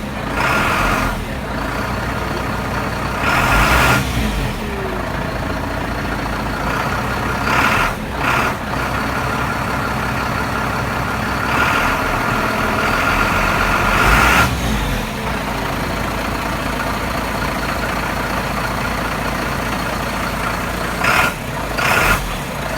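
Iveco Stralis 450's Cursor 10 straight-six diesel idling steadily after a cold start, with a steady high turbo whistle over it. Short bursts of air hissing from the truck's air system come through several times.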